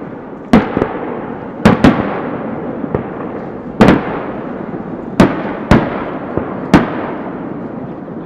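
Aerial firework shells bursting: about eight sharp booms at irregular intervals, some in quick pairs, each followed by a long rolling echo.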